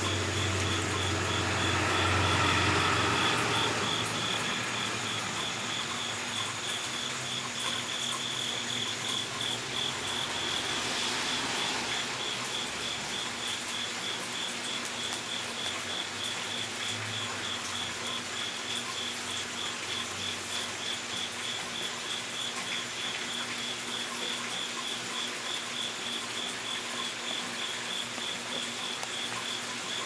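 An insect chirping steadily in a fast, even pulsing rhythm, with a low rumble in the first few seconds.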